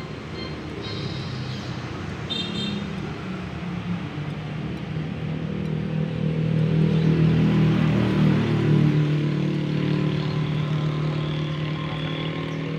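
Street traffic: a motor vehicle's engine running close by, growing louder to a peak about seven to nine seconds in and then holding steady, with motorbikes passing.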